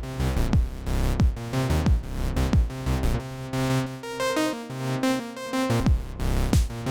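Acid techno played live on a Roland TR-8 drum machine and a Roland JU-06A synthesizer: a steady four-on-the-floor kick about twice a second under synth notes. About three seconds in the kick drops out, leaving synth chords and notes alone for a short break, and it comes back near the end.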